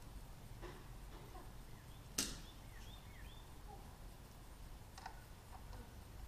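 Hand tools being handled as a socket is tried on a motorcycle bolt to find its size: one sharp click about two seconds in and a couple of fainter clicks, over a low steady hum.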